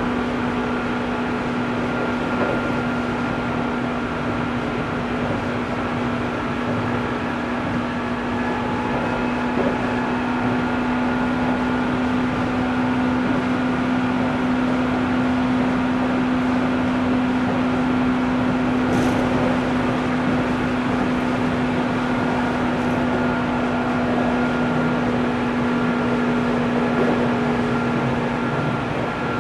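Running sound of a JR 205-series electric train heard inside the motor car: the externally fan-cooled MT61 traction motors and gearing hum at one steady pitch over the rumble of wheels on rail, the train holding a steady speed. A brief high squeak comes about 19 seconds in.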